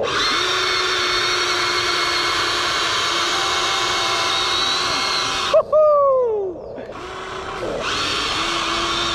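Electric motors and gearboxes of a Huina 1593 RC excavator whining steadily as it drives up a steep dirt slope on its tracks. The whine breaks off about five and a half seconds in, with a short falling sound, and starts again about a second later.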